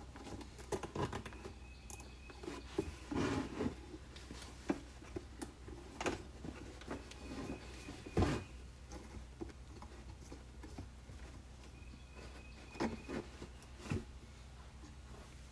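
Hands handling a plastic laundry jug and a wooden paint stick: scattered light clicks, taps and rustles, with one louder knock about eight seconds in, over a faint steady low hum.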